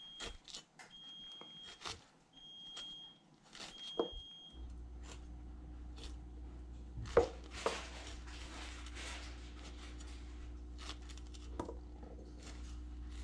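Cleaver cutting and scraping a pineapple on a cutting board, with scattered faint knocks. Over the first few seconds an electronic beep sounds four times about a second apart, a rice cooker's signal that the rice is cooked; about four seconds in a steady low hum comes on.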